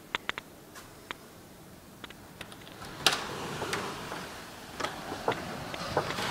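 Sharp clicks of a glass patio door's handle and latch as the door is worked open. The loudest click comes about three seconds in, and from then on the rush of ocean surf and wind comes in through the open doorway, with a few more clicks and knocks.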